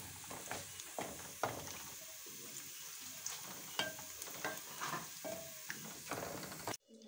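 A spoon stirring beef stew in a metal pot, scraping the pot in repeated strokes about twice a second, over a steady sizzle of the stew cooking on the stove. It stops suddenly near the end.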